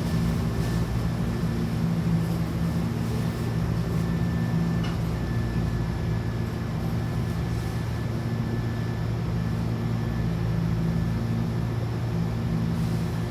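Steady running noise inside a Hankyu Kyoto Line train car, with a constant low hum and a faint high whine.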